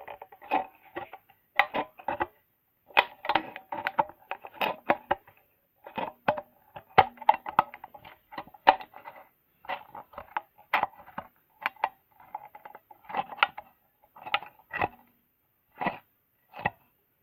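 Scissors snipping through the thin wall of an empty metal can, cutting it all the way round the middle. The sound is irregular clusters of sharp crunching snips with a metallic ring, broken by short pauses.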